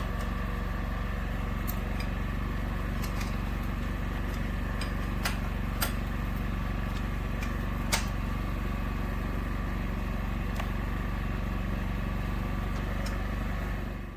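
Ariens 624 snowblower engine running steadily after the auger reassembly, with a few sharp clicks about five, six and eight seconds in.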